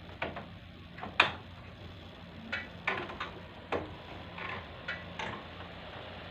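A series of about ten irregular sharp clicks and knocks over a steady low hum, the loudest a little over a second in.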